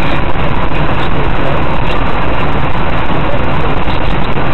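Steady engine and tyre noise inside a moving car, picked up by the dashcam, with a hiss from the tyres on the wet road.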